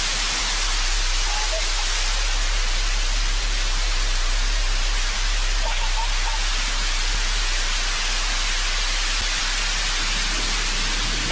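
New Shepard booster's single BE-3 engine firing for its landing burn: a steady, loud rushing hiss over a low rumble.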